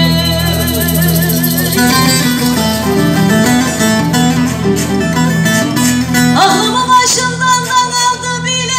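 Live Turkish uzun hava: a long wavering held melodic note, then a stretch of plucked string accompaniment, and about six and a half seconds in a woman's singing voice sweeps up and carries on in ornamented, wavering lines over the strings.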